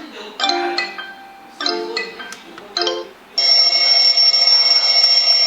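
Speaker alarm clock playing three short chiming musical notes, then a loud, steady electronic alarm ring that starts a little past halfway.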